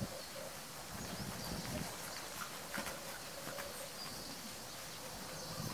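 Hoofbeats of a grey Andalusian horse moving over the sand footing of a riding arena.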